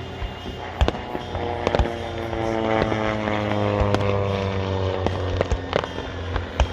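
Propeller aircraft passing by, its engine and propeller note sliding steadily down in pitch as it goes past, while firework bangs and pops go off several times.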